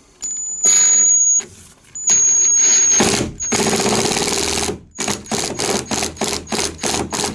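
Cordless impact driver driving a wood screw into a dowel-plugged hinge hole: a few short runs with a high motor whine, a longer continuous run, then rapid short bursts about three a second as the screw seats. The hammering shows that the screw is biting hard, a tight hole now.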